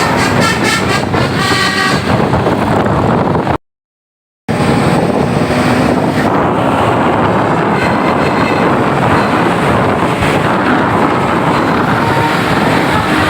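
Musical 'telolet basuri' air horn on a Tunggal Jaya bus playing its multi-note tune in the first two seconds. The sound then cuts out completely for about a second and comes back as loud, steady vehicle noise.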